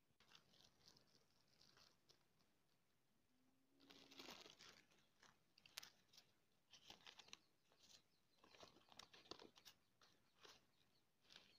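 Faint crinkling and tearing of a folded paper packet being opened and unfolded by hand, in irregular clusters of small crackles.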